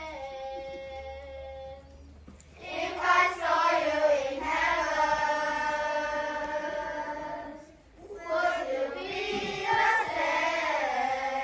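A group of children singing together in unison, with long held notes. The singing starts softly, swells louder after a short break about two seconds in, and pauses briefly near the end before resuming.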